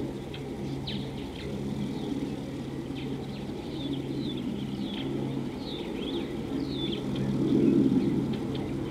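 Birds chirping, many short falling calls, over a steady low hum and rumble that swells near the end.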